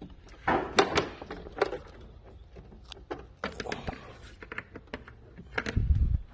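Scattered clicks, knocks and rustles of hands working at plastic engine-bay cowl trim and wiring, with a dull thump near the end.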